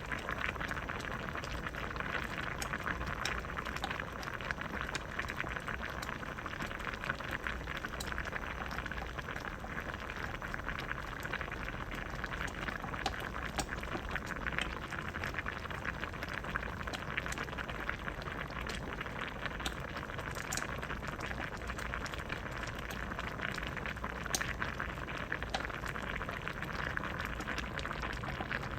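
Pot of vegetable soup boiling steadily, a dense bubbling with many small pops and an occasional sharper one.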